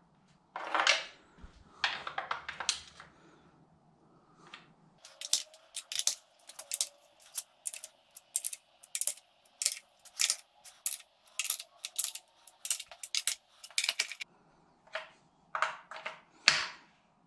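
Hand ratchet clicking in quick uneven runs as bolts on a BMW N52 engine are given their 90-degree angle turn after a 7 N·m torque. The clicks are densest in the middle, with a few scattered metal clicks and knocks before and after.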